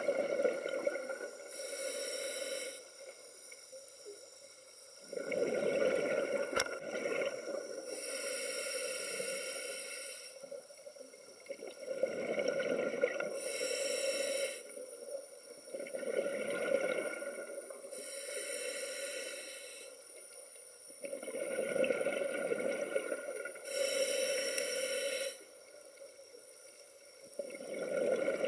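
A scuba diver breathing through a regulator underwater, about five slow breaths: each inhale is a short hiss, and each exhale is a longer burst of bubbling from the exhaust.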